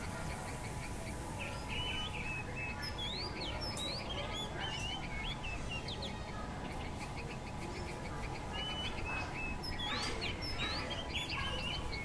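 Bulbul calling: bursts of short, bubbly chirped notes that quickly rise and fall in pitch, starting about a second and a half in, over a steady low background rumble.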